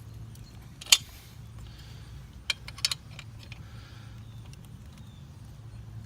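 Small metal clicks and clinks of an Allen key and bolt as a motorcycle swingarm spool is screwed in: one sharp click about a second in, then a quick run of three or four clicks about two and a half seconds in, over a low steady hum.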